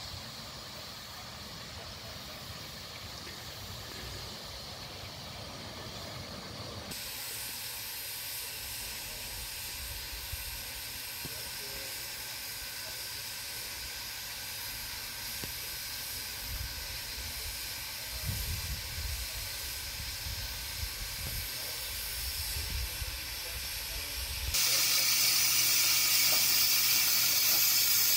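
Steady hiss of steam from ridable-scale live-steam locomotives: faint at first, then loud near the end, close to a parked locomotive with steam pouring from its stack.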